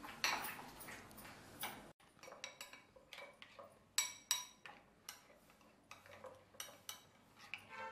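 Metal spoon stirring a thick cornflour-and-sauce batter in a glass bowl: soft scraping and irregular light clicks of the spoon against the glass, with a couple of sharper clinks about four seconds in.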